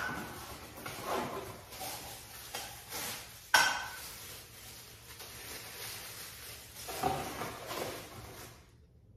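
Small containers being unpacked from a cardboard box and handled on a bathroom countertop: rustling packaging and light knocks, with one sharp clink about three and a half seconds in.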